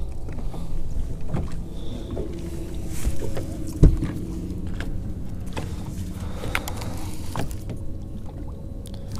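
Low rumble of wind and water around a bass boat sitting on the lake, with a faint steady hum through the middle and a few light clicks. A single sharp knock sounds about four seconds in.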